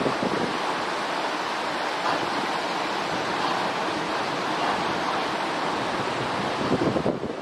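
Steady outdoor rushing noise, an even hiss with no animal calls, with a few brief louder bumps near the end.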